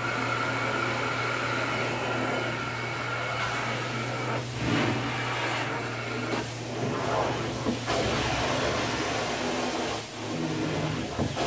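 Carpet-cleaning extractor drawing suction through its wand and long vacuum hose with a steady drone and hiss. The sound shifts every second or two as the wand is pushed and pulled across the carpet.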